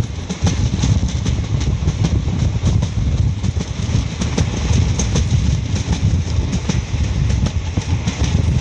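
Passenger express train running at speed, heard from an open coach window: a loud, steady rumble of wheels on track with a quick, uneven clatter of clicks over the rails.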